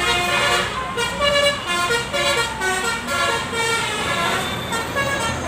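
Bus 'telolet' basuri horn playing a quick melody of stepping notes, several pitches changing every quarter second or so, over the rumble of road traffic.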